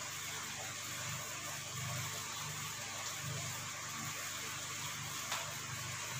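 Steady background hum and hiss of room tone, with one faint sharp click about five seconds in.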